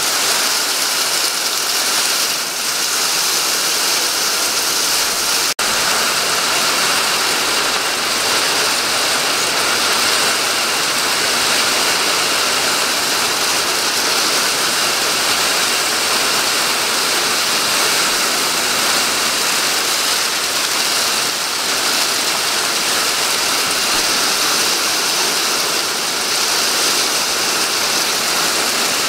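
Heavy rain falling, a steady dense hiss that doesn't let up, with a momentary dropout about five and a half seconds in.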